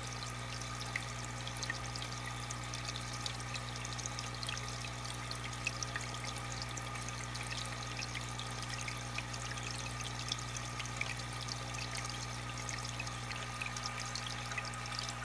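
Aquarium water trickling and bubbling steadily, a dense patter of small splashes, with a steady low hum underneath.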